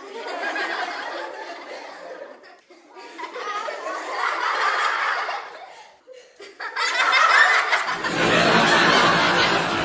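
Studio audience laughter in three swells that die down in between. About eight seconds in it gives way to a fuller, steady background of crowd chatter.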